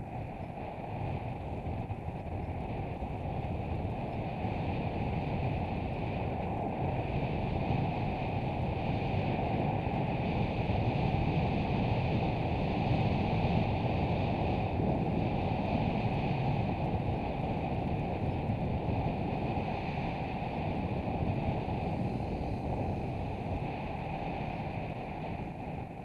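Wind rushing over a helmet camera's microphone as a bicycle is ridden at speed, swelling to its loudest about halfway through and easing off near the end.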